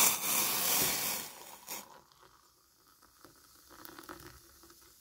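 Hot water poured from a small pot into a mug of instant chicory powder: a loud splashing hiss for the first second and a half, then a much quieter pour.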